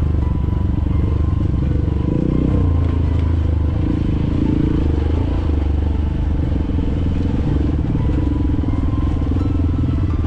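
Dirt bike engine running, its pitch shifting a little now and then.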